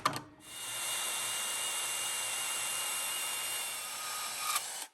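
Power saw cutting through a steel bracket: a steady high whine over a hiss of blade on metal, starting just after a click and stopping suddenly near the end.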